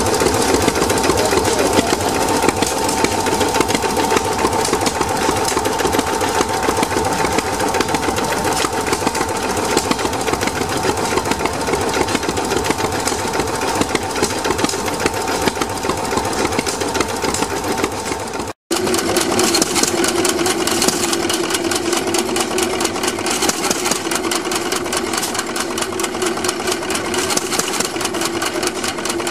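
1912 Davis two-cylinder opposed stationary gas engine running steadily with a rapid beat of firing strokes. About two-thirds of the way through the sound cuts abruptly to a Hercules stationary gas engine running, its flywheels spinning.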